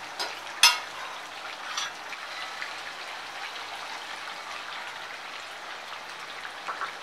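Chicken and spice masala frying in a kadai, a steady sizzle, as yogurt is added to the pan. Two sharp metal clinks within the first second, the second the loudest, and a fainter one near two seconds, from the slotted spoon knocking on the kadai.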